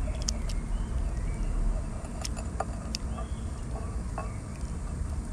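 A steady low rumble, with a few light clicks and scrapes of a wooden spoon against a steel pot as thick milky vermicelli pudding is poured into a bowl.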